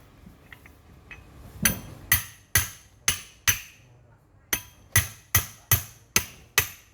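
Hammer striking metal, sharp ringing blows at about two a second: five blows, a short pause, then six more.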